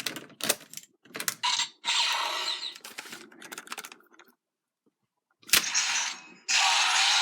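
Gokai Saber and Gokai Gun toys being activated: sharp plastic clicks from the keys and triggers, then bursts of electronic sound effects with gliding tones played through the toys' small speakers. A longer continuous sound effect starts near the end.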